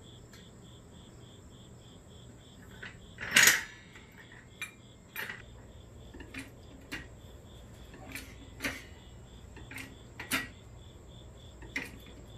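Hydraulic floor jack clanking and clicking as its steel handle is set in and pumped to raise the car: one loud metal clank a few seconds in, then lighter strokes about every second and a half. A cricket chirps steadily underneath.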